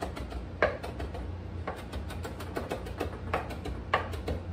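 Chef's knife chopping fresh rosemary on a plastic cutting board: rapid, even knocks of the blade on the board, with a few harder strikes about once a second.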